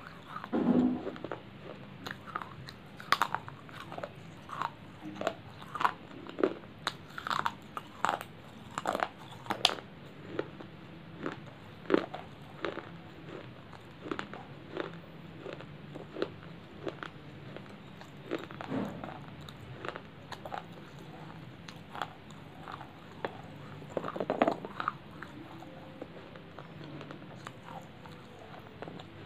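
A person biting and chewing pieces of baked clay close to the microphone: irregular dry crunches, with a handful of louder bites among them.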